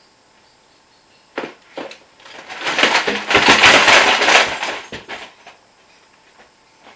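Contents of an overfilled cabinet tumbling out as it is opened: a couple of knocks, then a dense clattering crash of many items falling for about three seconds.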